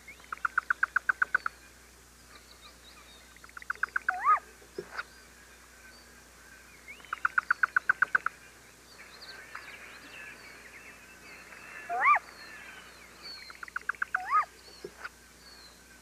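Great gray owls calling at the nest during a feeding: four rapid trills of short, evenly spaced notes, each lasting about a second, and three louder rising-and-falling squeals, one about four seconds in and two near twelve and fourteen seconds.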